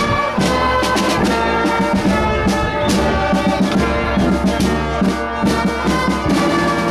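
Marching brass band playing a tune with a steady beat: sousaphone bass notes under trombones and clarinet, with drum strokes.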